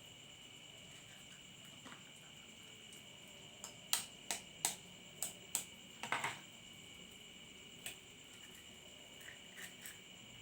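Crickets chirring steadily and high-pitched in the background, with a quick run of sharp clicks and taps from kitchenware, about eight in two and a half seconds around the middle, and a few fainter taps later.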